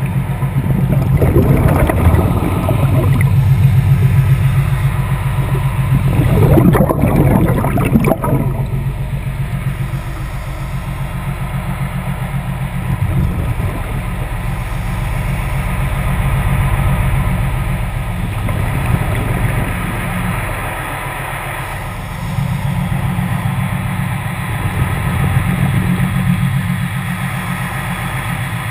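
Underwater recording beside a vessel's hull and propeller: a steady low machinery hum with a fine, fast pulse, carried through the water. Two louder bursts of noise break in, about a second in and again about seven seconds in.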